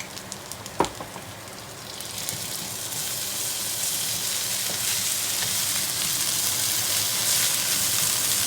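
A few light utensil clicks and one sharp knock on the pan, then bagoong alamang (shrimp paste) frying in hot oil: the sizzle builds from about two seconds in and settles into a steady hiss.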